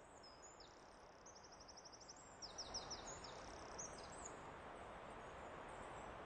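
Faint outdoor background hiss with small birds chirping, including quick high trills and short down-slurred calls that are loudest a little before the middle.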